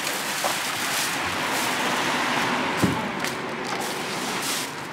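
Plastic packing wrap rustling and crinkling as it is handled, with one sharp knock about three seconds in.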